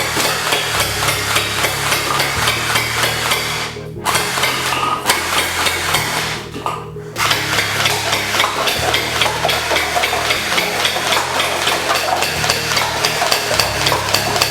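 Fully automatic electric gel-ball toy rifle firing in long rapid bursts of evenly spaced clacks, breaking off twice, over background music with a stepping bass line.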